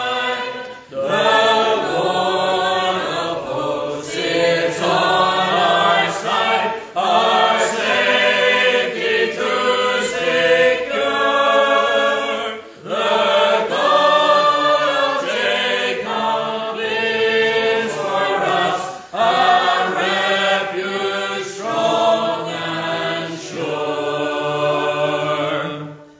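Congregation singing a metrical psalm unaccompanied, in long sung lines with brief breaths between them. The singing ends near the end.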